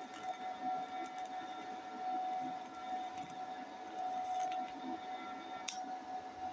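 TIG welding arc on steel, a steady buzzing hum, with one sharp click near the end.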